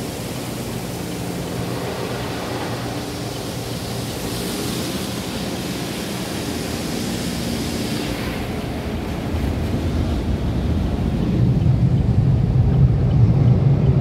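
Water spraying over the car in a Belanger tunnel car wash, heard from inside the cabin as a steady hiss. Past the middle the hiss fades and a louder, steady low rumble takes over, the tunnel's blower dryers.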